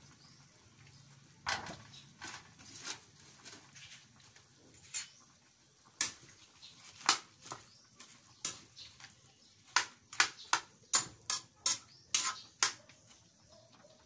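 Ladle knocking and scraping against a metal wok as chicken and sliced banana heart are stirred in broth: scattered clinks at first, then a quick run of sharp clanks, about three a second, near the end.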